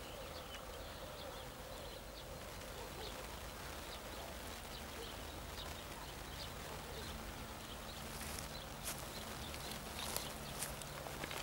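Faint rural outdoor ambience with distant birds chirping now and then, and a few soft knocks in the last few seconds.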